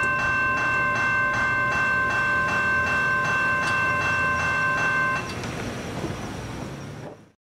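Railway crossing bell ringing about twice a second over the low rumble of a passing train; the bell stops about five seconds in, and the rest fades out soon after.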